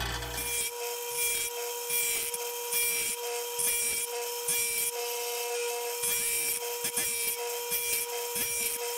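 A 3/8-inch saw gumming wheel on a Belsaw 10452 sharpener grinding the gullets of a steel circular saw blade. A steady motor whine runs under repeated short rasping passes as the wheel bites the steel.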